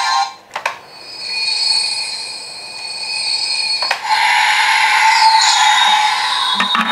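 Electronic sound effects from a Bandai CSM Kamen Rider Ryuki toy powering on, played through its built-in speaker. Synthesized tones hold and swell, with a sharp click about half a second in and another about four seconds in.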